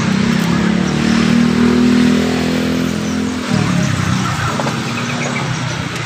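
A vehicle engine running close by, its pitch creeping up for about three seconds, then dropping suddenly about three and a half seconds in and fading away.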